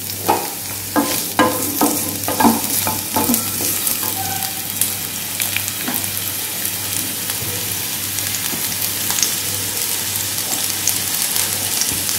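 Chopped onions sizzling in hot oil in a nonstick frying pan, stirred with a wooden spatula. There is a steady frying hiss, with several sharp clacks in the first few seconds.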